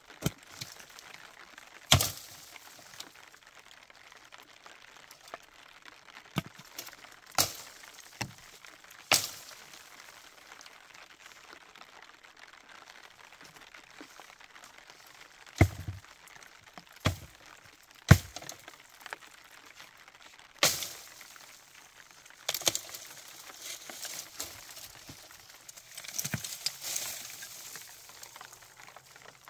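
A series of sharp cracks and knocks at irregular intervals, about a dozen, something hard being snapped or struck. A softer run of crackling and rustling follows near the end.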